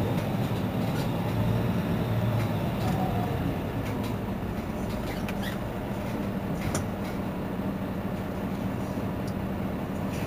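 Mercedes-Benz Citaro C2 city bus idling while stationary, its engine giving a steady low hum, with a few faint clicks.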